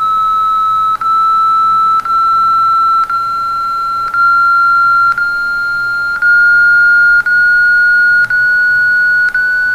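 Computer-generated alert tone from an image-change intrusion-detection program, sounding as a chain of roughly one-second tones joined by small clicks, each a little higher in pitch than the last. The rising pitch is the alarm signalling a growing intrusion level as the intruder stays in the camera's view.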